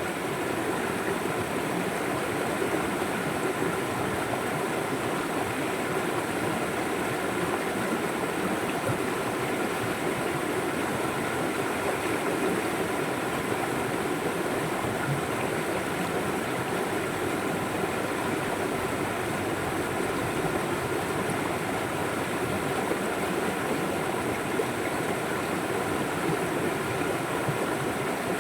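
River water flowing in a steady, even rush with no breaks or changes.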